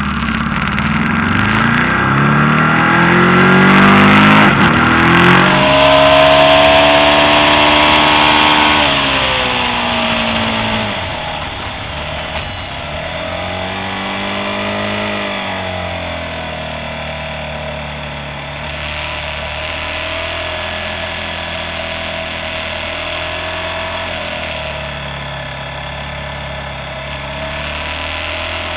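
Ducati sportbike's V-twin engine revving hard as it accelerates out onto the track, its pitch climbing then dropping at each upshift, with wind rushing over the microphone. Later it runs steadier and a little quieter through the corners.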